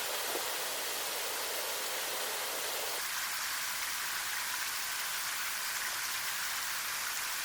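Waterfall in a mountain ravine: a loud, steady rush of falling water. About three seconds in, the deeper part of the rush drops away and the hiss above it carries on.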